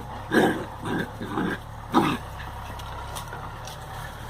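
Dogs playing, giving four short vocal bursts in the first two seconds, then going quiet.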